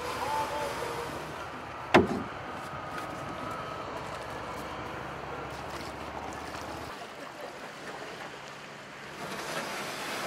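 Open-air background noise with faint distant voices, and one sharp, loud knock about two seconds in.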